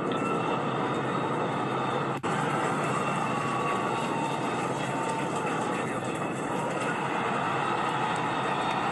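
Liftoff noise of SpaceX's Starship on its Super Heavy booster's 33 Raptor engines: a steady, unbroken roar, heard through a TV speaker, with a brief dropout about two seconds in.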